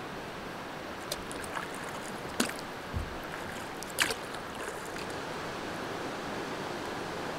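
Solo canoe being paddled on a lake: a few sharp paddle clicks and splashes, the loudest about four seconds in, over a steady wash of lapping water and light headwind.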